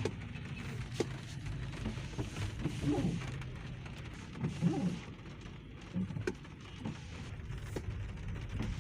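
Street ambience beside flooded traffic: a steady low engine hum, with short rising-and-falling voice-like calls every couple of seconds and a few sharp clicks.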